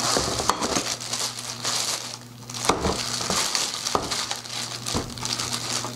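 Plastic packaging bags crinkling and rustling as drum-rack hardware wrapped in red plastic is lifted out of a cardboard shipping box, with a few light knocks.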